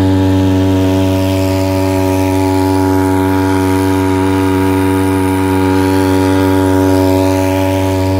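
Small 2 hp two-stroke outboard motor, built around a grass-trimmer engine, running under way at a steady throttle. It gives one even engine note that holds the same pitch throughout.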